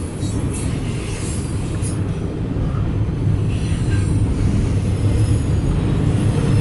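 CSX intermodal freight train of double-stacked container cars rolling past a grade crossing: a steady low rumble of wheels on the rails, growing a little louder about halfway through.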